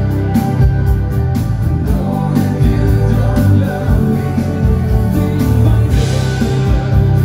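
Live dansband music: a band playing with singing, electric bass, guitar and a steady drum beat.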